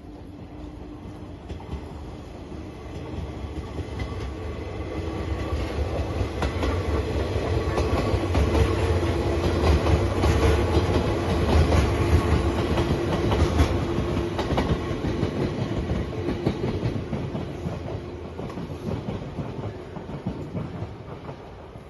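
A train passing by, its wheels clacking over rail joints; the sound swells over the first several seconds, is loudest in the middle and fades away near the end.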